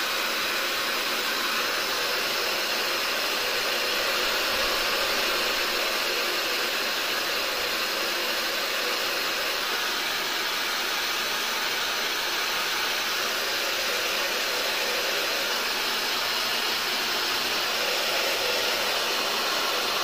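Soocas A1 (Nova) high-speed hair dryer running steadily, a smooth rushing of air with a faint high whine in it.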